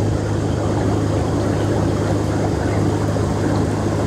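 MTI air massage bathtub's blower running at reduced intensity just after start-up, driving air out through the tub's jets. A steady low hum sits under a churning rush of bubbling air and water.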